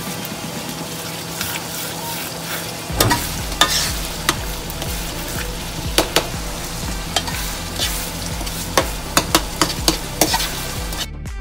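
Tomato sauce sizzling in a frying pan while a metal spoon stirs it, with sharp clicks of the spoon knocking and scraping against the pan, more frequent from about three seconds in.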